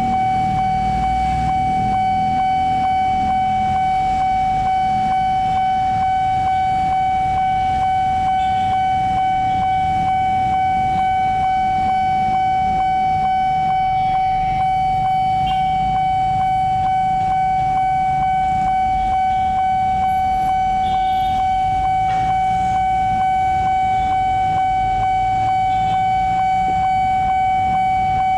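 Railway level-crossing warning alarm sounding continuously as a steady, high electronic tone with the barriers down, over a low rumble of traffic waiting at the crossing.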